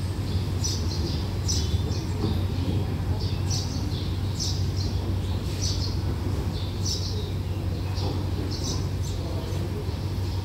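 Small birds chirping in short, repeated high calls, about one or two a second, over a steady low hum.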